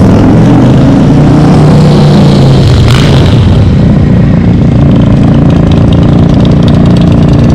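Motorcycle engine running close and loud, its pitch climbing over the first two seconds, dropping about three seconds in, then holding steady, with wind buffeting the microphone.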